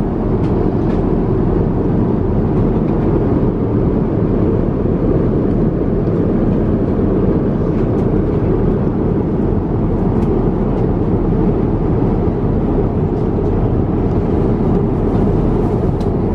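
Steady cabin noise of a jet airliner in flight: a constant low rush of engine and airflow.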